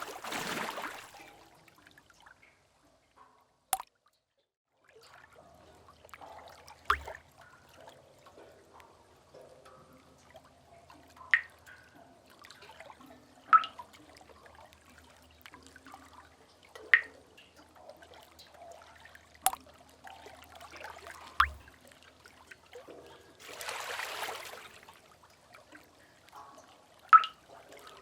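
Sea-cave water ambience: single water drops plinking one at a time into a pool every two to three seconds over a faint wash of distant water, with a wave washing in and splashing at the start and again near the end.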